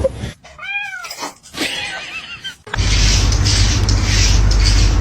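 A cat meowing: a few short meows that rise and fall in pitch. About halfway through, loud music with a heavy bass cuts in.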